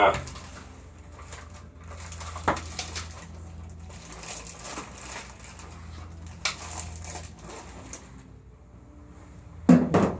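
Handling noises: scattered rustles and clicks, with a louder knock near the end, over a steady low hum.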